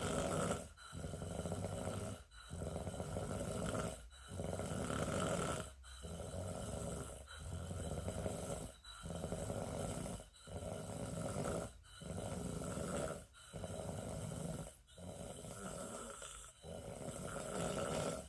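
Slow, regular snoring: one breath about every one and a half seconds, each ending in a brief pause.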